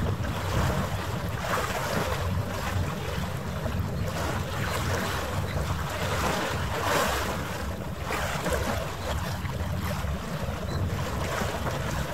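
Wind buffeting the microphone over harbour water, an even rushing noise with a low rumble that swells in gusts, sped up nearly three times.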